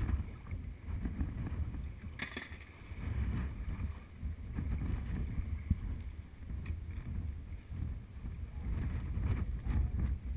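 Wind buffeting the microphone in gusts, a low rumble, with choppy bay water slapping against the boat's hull. A short hiss about two seconds in.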